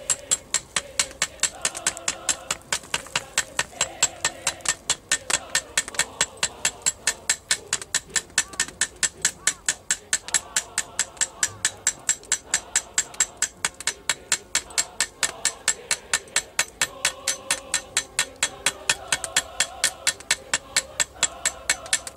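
Hand hammer beating a red-hot stack of hacksaw-blade and tin layers on a small steel anvil plate, a steady run of sharp blows about three a second: forge welding the layers into a Damascus steel billet.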